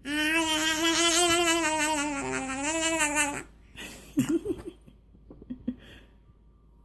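A young child's sustained, buzzy vocal noise, one long wavering hum with a quick tremble in pitch, held for about three and a half seconds. A few short, fainter vocal sounds follow about a second later.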